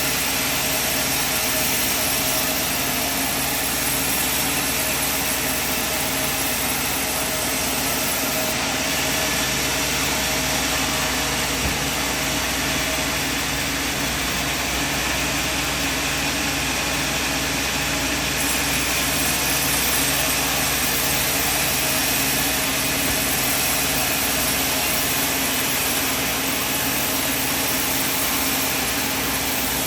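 Sawmill machinery running steadily: a continuous mechanical drone with a few constant tones and no distinct cuts or knocks.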